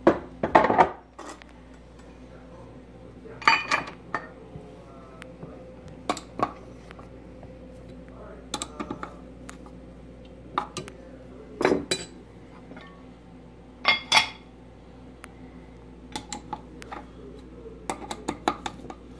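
Irregular metal-on-metal clinks and clacks as Mitee-Bite clamps are set on a metal fixture plate and tightened with a hex key, over a steady low hum.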